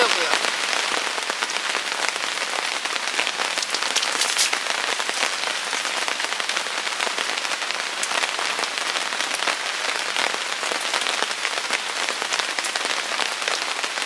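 Steady rain falling: a dense, even hiss made of many individual drops striking surfaces.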